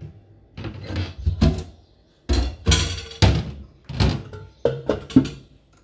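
Dishes and a metal pan and lid being handled at a stainless steel sink: a run of about ten knocks and clatters, some ringing briefly, with short pauses between.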